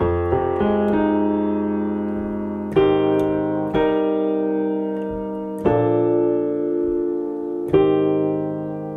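Digital stage piano on a piano tone playing a slow progression of sustained chords in open voicings (root, fifth, third, seventh), with a new chord struck about every two seconds and each one left to ring. It is a C minor progression: F minor 7, A flat major 7, C minor 7, then B flat major 7.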